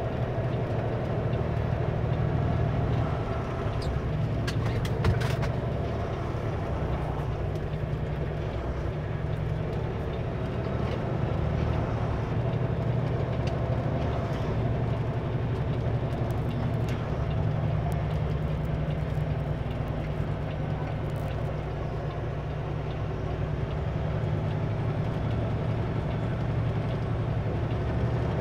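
Kenworth W900L semi truck's diesel engine running steadily at low speed, with a sharp knock about five seconds in.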